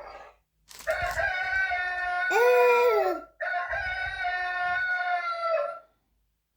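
Rooster crowing: one long drawn-out crow of about five seconds, with a brief break about halfway through.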